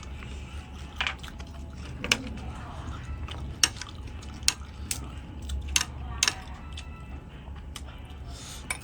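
Close-miked eating: scattered sharp clicks and taps of utensils against dishes and chewing, about seven in all, over a steady low hum.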